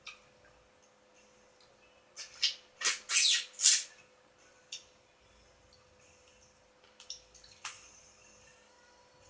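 Close-up eating sounds from a cooked crab meal: a quick run of short, noisy crunching and sucking sounds between about two and four seconds in, then a few scattered clicks.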